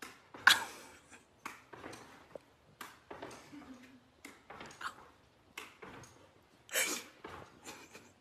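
A pet's irregular short thumps and scuffles as it jumps onto and off furniture and lands on the floor, in a small room. The loudest sudden noises come about half a second in and again near seven seconds.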